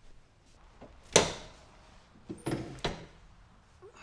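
A sharp knock about a second in, then a few lighter knocks just before three seconds: clunks from a person climbing onto a riding mower, with the engine not yet running.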